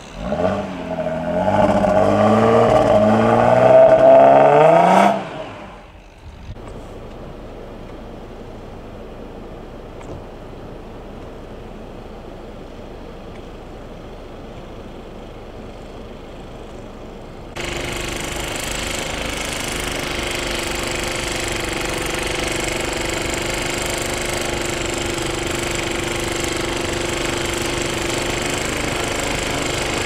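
A vehicle engine revs hard, rising in pitch for about five seconds, as a stuck car is pulled out of deep snow on a tow strap. A quieter steady hiss follows. About two-thirds of the way in, a gas-powered walk-behind snowblower starts running steadily, with a steady engine hum and the noise of snow being thrown.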